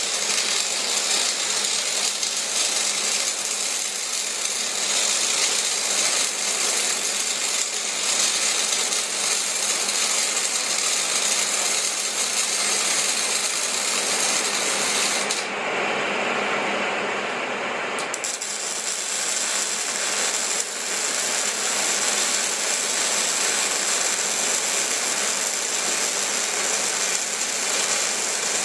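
CO2-shielded solid-wire MIG welding arc crackling and spattering without a break. About sixteen seconds in the sound briefly loses its high hiss and comes back a couple of seconds later.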